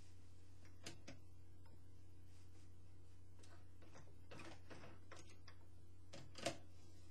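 Quilt fabric being shifted and positioned under a sewing machine's presser foot: soft rustles and light clicks, a few at a time, the loudest near the end, over a steady low hum, with no stitching run.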